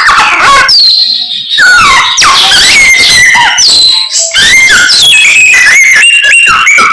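Samyong songbird singing loudly and continuously: a fast, varied run of clear whistles, with quick rising and falling glides and short trills.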